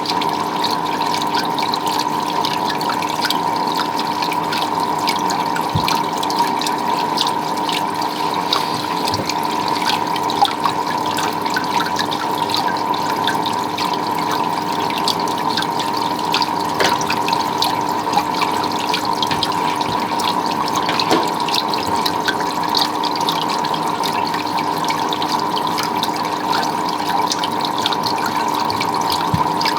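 Water running and trickling steadily, with small drips and splashes, over a steady low hum.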